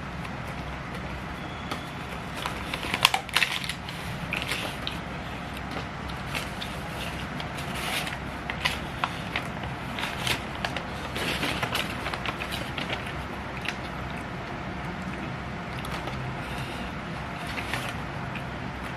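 Close-up eating sounds: chewing and crunching of nasi padang, with irregular small clicks and crackles, a cluster of louder crunches about three seconds in, over a steady low background hum.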